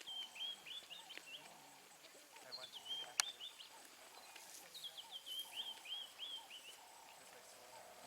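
A bird calling in three runs of short, quickly repeated high chirping notes, with a single sharp click about three seconds in.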